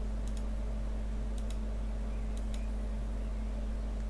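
Computer mouse clicking: three quick double clicks, about a second apart, over a steady low hum.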